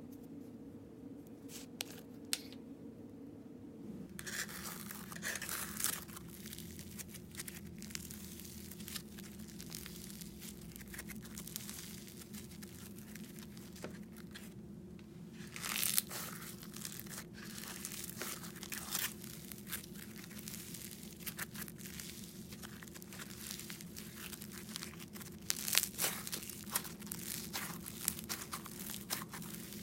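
Micro floam slime (slime packed with tiny foam beads) being stretched and squeezed by hand, giving off dense, irregular crispy crunches and crackles, with a few louder bursts. A steady low hum runs underneath.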